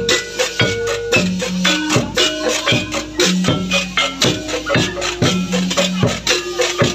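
Dongkrek ensemble playing a steady, rhythmic piece: wooden-keyed xylophones and a large bass drum struck with mallets, with repeated low and mid pitched notes and a rattling percussion running through it.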